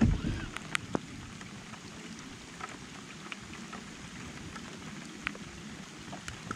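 Steady rain falling on the lake water and the boat, with scattered sharp ticks of single drops. A short low thump sounds right at the start.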